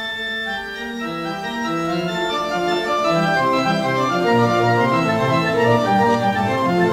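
Wurlitzer theatre pipe organ, a two-manual, nine-rank instrument, playing a television theme tune: held chords under a moving melody, with deeper bass notes filling in after the first couple of seconds.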